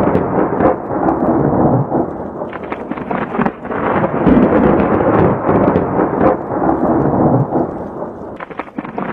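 Loud thunder-like rumbling with crackles, swelling and ebbing in waves and easing a little near the end.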